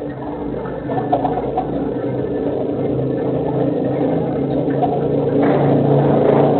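A motor vehicle engine running steadily and growing louder, as if approaching, with faint bird chirps behind it.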